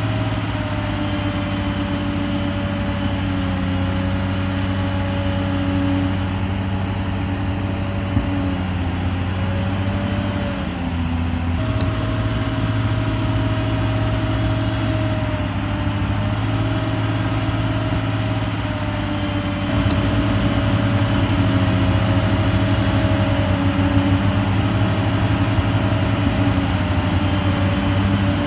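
Heavy diesel engine of earthmoving machinery running steadily, its pitch wavering slightly. It eases off briefly about ten seconds in, picks up again, and gets louder about twenty seconds in.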